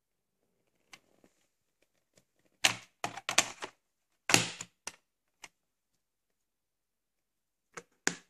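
Hard plastic clacks and knocks of a VHS cassette being handled, set into its plastic clamshell case, and the case shut. There is a quick cluster of clacks from about two and a half to five seconds in, and a few more near the end.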